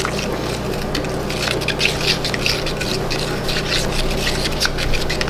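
Puppy milk formula being mixed by hand in a small container: a rapid, irregular swishing of liquid.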